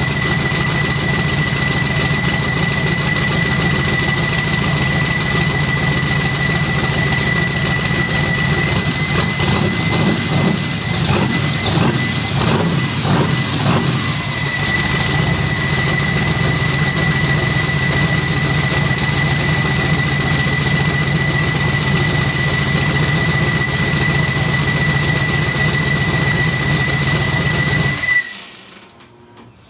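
Twin-turbo Fox-body Mustang engine running on its first start after the build, with a steady high-pitched whine over it and a few uneven seconds in the middle. It is shut off abruptly near the end.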